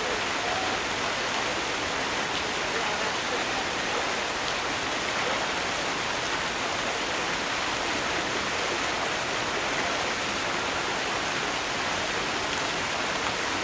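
Steady rush of flowing water, an even, unbroken hiss that holds at one level throughout.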